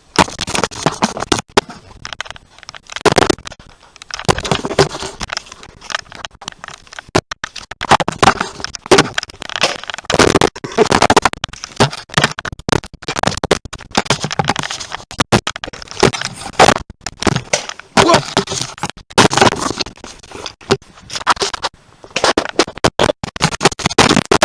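Close scraping and rustling with many sharp, irregular clicks and knocks from players moving and handling Nerf blasters during a duel.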